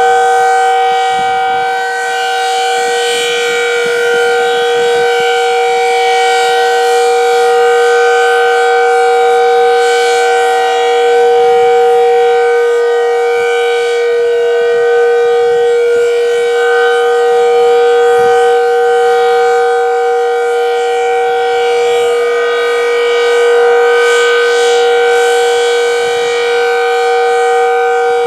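Decot Red Arrow Model 12 outdoor warning siren sounding the steady Alert tone: a loud, constant-pitch wail whose level swells and fades slowly.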